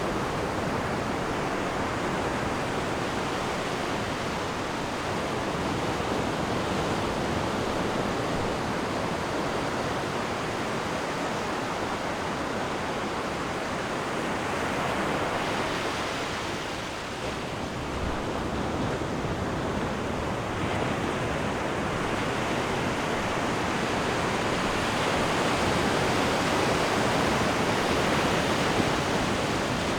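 Ocean waves washing and breaking on a rocky shore, a continuous rushing surf that dips briefly about halfway through and builds again toward the end.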